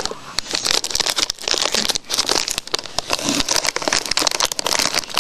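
Doritos chip bag crinkling and crackling as it is handled right at the microphone, a dense run of sharp plastic crackles.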